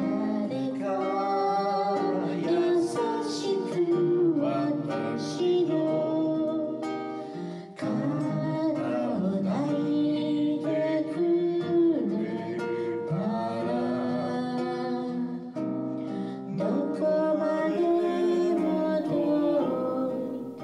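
Music: plucked acoustic guitar with a singing voice, stopping abruptly at the end.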